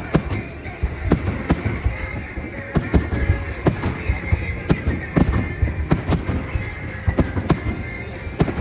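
Aerial fireworks bursting in a quick series of sharp bangs, about two a second, over a continuous low rumble of the display.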